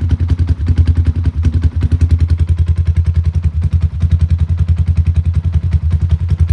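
Yamaha Sniper 150's single-cylinder four-stroke engine idling through an aftermarket VMAX racing exhaust pipe: a steady, rapid, even exhaust beat with no revving.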